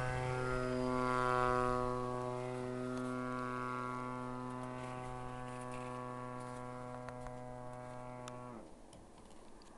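DLE 20 single-cylinder two-stroke petrol engine of a radio-controlled model plane, running steadily at high throttle with a propeller drone that fades with distance. Near the end the engine is throttled back and the drone falls away sharply in pitch and level.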